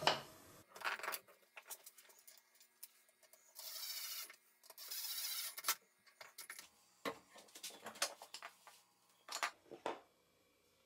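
Yellow DeWalt cordless driver running in two short bursts, each under a second, about three and a half and five seconds in, driving screws that fix the vise screw's flange plate to a wooden block. Light clicks and knocks of wood and metal parts being handled follow.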